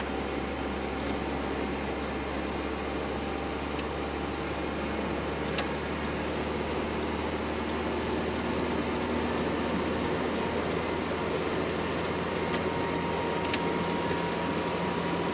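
Steady engine and road noise heard inside the cab of a GAZelle light truck on the move, with a few light clicks.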